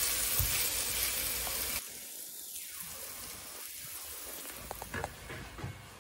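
Food sizzling in a nonstick frying pan as it is stirred with a spatula, cutting off abruptly a little under two seconds in. A much quieter hiss follows, with a few light clicks as the food is tipped from the pan onto a plate.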